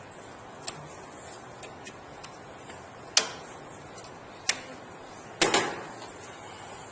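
Sharp clicks and knocks of a PC power supply and its metal case parts being fitted back into a computer case: a few light clicks, with a louder knock about three seconds in and a louder clatter about five and a half seconds in.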